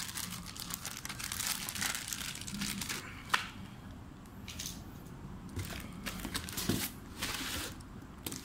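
Plastic packaging crinkling and rustling as it is handled, in a series of short bursts, with one sharp click a little over three seconds in.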